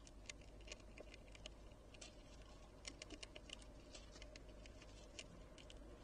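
Faint, irregular small clicks and taps, several a second, from an Ezo squirrel on a wooden feeder tray, cracking and handling seeds.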